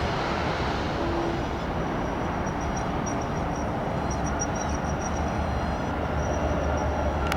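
Jet aircraft engine noise fading away after a passing plane, leaving a steady low rumble of airport traffic. A faint high, pulsing chirp runs through the middle.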